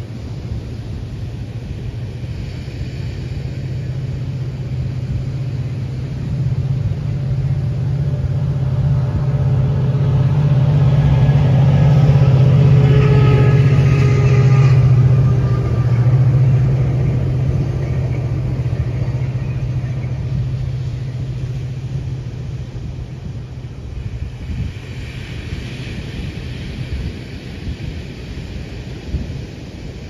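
Low, steady engine hum of a large vehicle passing by unseen. It swells slowly to its loudest about halfway through, with a few higher tones near the peak, then slowly fades.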